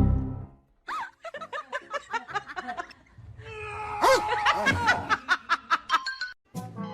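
Background music with a person laughing in a quick run of short 'ha' sounds, after a low thump at the very start.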